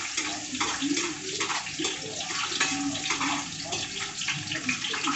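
Chopped onion sizzling and crackling in hot oil in a large steel pot as it is stirred with a ladle, frying until it browns.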